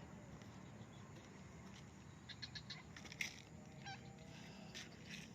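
Sick stray cat at its food: faint clicking and ticking around the middle, and one short, faint wavering cry about four seconds in, over a low steady hum.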